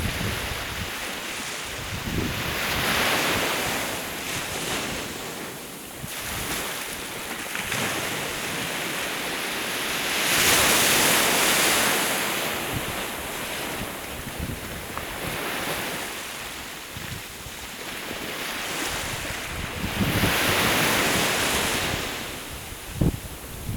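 Sea waves washing onto the shore, the surf swelling and ebbing in three louder surges roughly eight seconds apart, with wind on the microphone.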